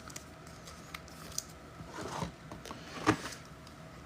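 Trading cards and pack wrappers being handled: a few light clicks and two brief rustles, about two and three seconds in.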